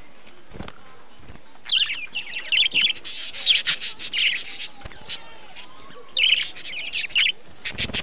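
Budgerigars chirping and chattering in quick, high bursts: a run of about three seconds, a pause, then a shorter burst and another starting near the end.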